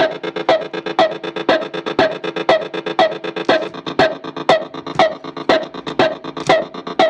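Circuit-bent Korg DDD-1 drum machine playing a steady glitchy electronic beat, with strong hits about twice a second and smaller ones between, over a sustained buzzing pitched drone.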